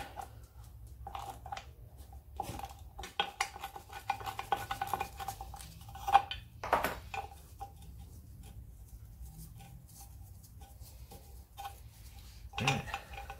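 Metallic clicking and scraping as a spanner works the Land Rover Defender's parking brake shoe adjuster back and forth to free it up. The adjuster is stiff and has to be freed before the shoes are refitted. The clicks come thick for the first several seconds, with the loudest clacks around six to seven seconds in, then thin out before a short metal clatter near the end.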